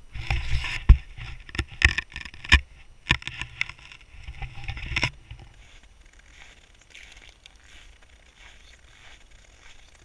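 Handling noise on an action camera: a run of knocks, clatters and scrapes as it is gripped and positioned, stopping about five seconds in. After that, faint soft crunches like steps on snow.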